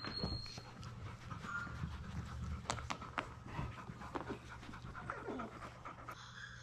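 Adult English Springer Spaniel panting close by, with scattered small clicks and rustles.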